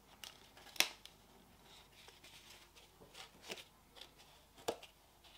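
A snap-on plastic lid being worked loose from a polystyrene deli cup by hand. A few faint creaks and clicks, the sharpest about a second in and again near the end.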